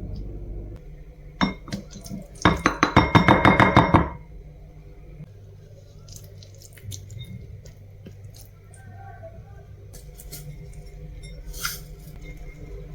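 A metal utensil clinking rapidly against a dish in a quick run of ringing strikes lasting about a second and a half, after a single clink. Then come a few faint clicks and taps.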